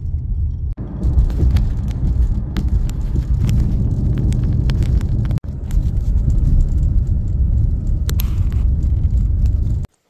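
Car driving on a dirt road, heard inside the cabin: a steady low road and tyre rumble with scattered clicks and knocks over the rough surface. It cuts off abruptly near the end.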